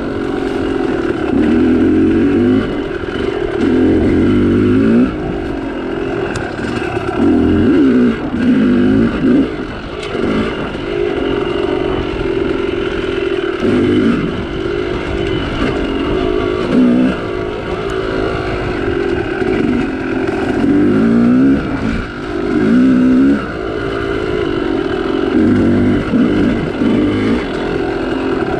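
Two-stroke dirt bike engine, a Yamaha YZ250, revving up and easing off again and again as it is ridden hard under changing throttle.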